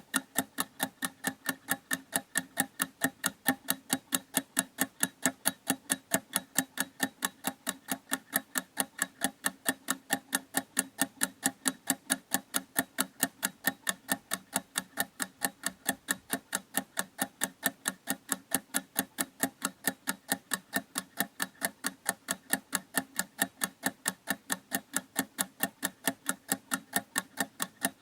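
Clock ticking steadily, a rapid and perfectly even run of sharp ticks.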